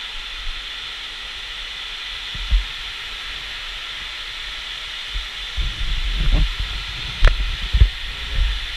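Large-scale rainfall simulator spraying artificial heavy rain from its overhead nozzles: a steady hiss of falling water. Low thuds come a couple of seconds in and again through the second half, with one sharp knock near the end.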